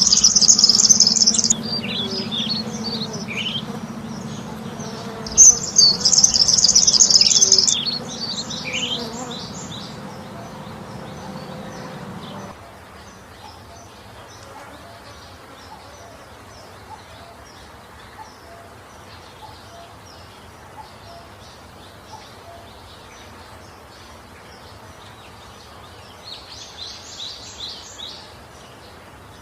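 Small birds chirping: loud bursts of shrill, rapid twittering near the start and again about six seconds in, then scattered short high chirps and another twittering burst near the end. A low steady hum runs under the first part and cuts off abruptly about twelve seconds in.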